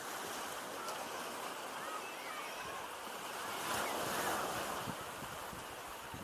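Small sea waves breaking in the shallows and washing up the sand, with a louder breaker about four seconds in.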